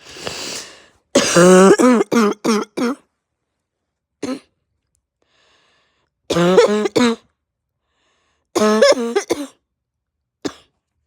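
Harsh barking cough from a person with a raw, sore throat and heavy chest: a long gasping breath in, then a fit of about six coughs, a single cough, two shorter fits and one last short cough near the end.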